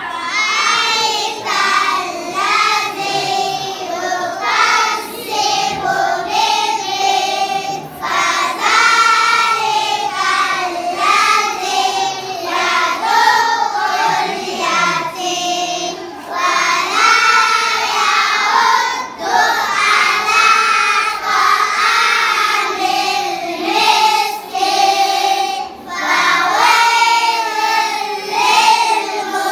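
A class of young schoolchildren singing together in a group, phrase after phrase.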